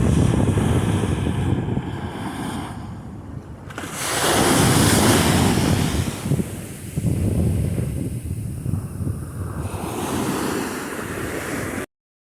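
Ocean surf breaking and washing up the beach, swelling to its loudest about four seconds in, with wind buffeting the microphone. The sound cuts off suddenly near the end.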